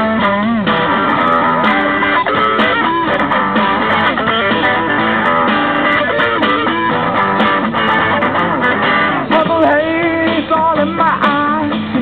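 A busker's guitar playing, plucked and strummed, in a continuous stretch of music.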